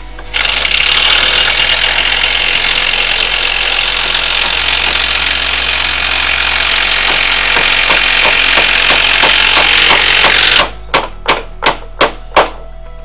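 A handheld power tool running hard and continuously for about ten seconds, then five short bursts in quick succession near the end.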